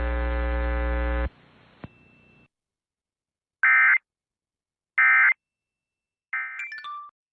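A steady electrical buzz cuts off about a second in. After a pause come three short Emergency Alert System end-of-message data bursts, the warbling digital code that closes an alert, spaced about a second and a half apart; the last one breaks up.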